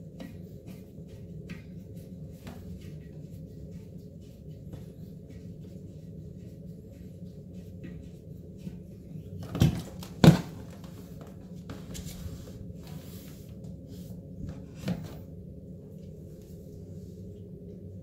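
Toilet water-supply hose being unscrewed from the fill-valve connection under the tank: light clicks and handling knocks, with two sharp knocks close together about ten seconds in and a smaller one about fifteen seconds in, over a steady low hum.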